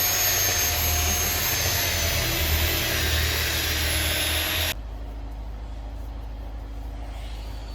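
A woodworking power machine running with a loud rushing noise and a steady high whine that sinks slightly in pitch. About two-thirds of the way through it cuts off suddenly, leaving a quieter low hum.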